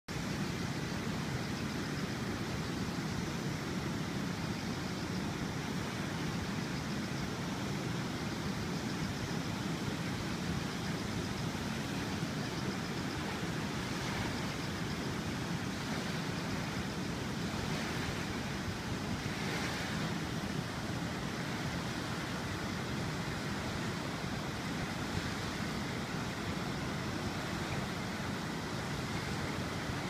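Steady rushing of a river in flood, brown water running high and fast and pouring over a weir.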